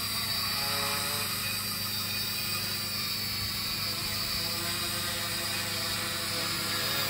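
Large electric quadcopter (60+ lb thrust) with its motors and propellers humming steadily as it climbs, carrying an RC airplane slung beneath it on a string.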